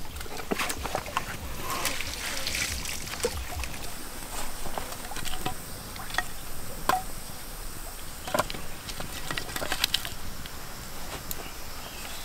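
Scattered sharp clicks and knocks of split firewood being handled and laid on a small newly lit campfire, over a faint steady hiss.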